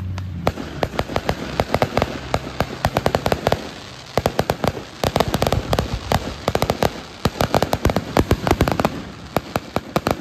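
Fireworks crackling: rapid strings of sharp pops, many a second, easing briefly about four seconds in and again near the end.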